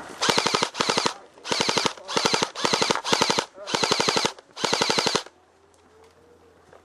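Airsoft rifle firing on full auto in about eight short, rapid bursts, each a quick rattle of shots, stopping a second or two before the end.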